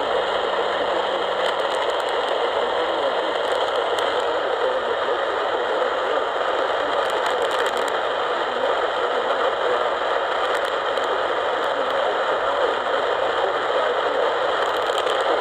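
Steady static hiss from a radio tuned to a weak AM station; the emergency alert it is airing is almost inaudible under the noise.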